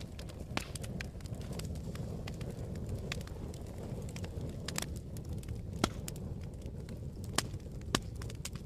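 Wood fire crackling in a fireplace: a steady low rumble of burning logs with scattered sharp pops, the loudest a little before six seconds in and twice more near the end.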